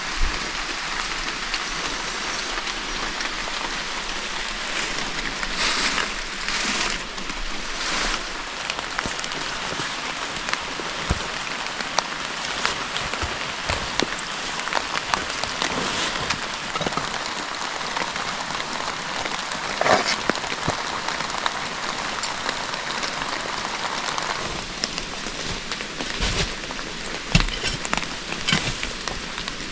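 A steady outdoor hiss of forest ambience, like rain on leaves. Scattered knocks and snaps of wooden branches being moved and handled come through it, the sharpest about two-thirds of the way through and near the end.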